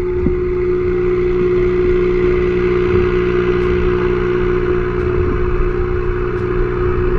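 A steady mechanical hum with one strong held tone and a faint hiss above it, picked up underwater.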